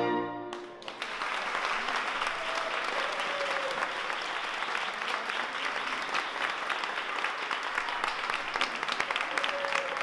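A saxophone ensemble's final chord cuts off about half a second in, followed by an audience clapping steadily.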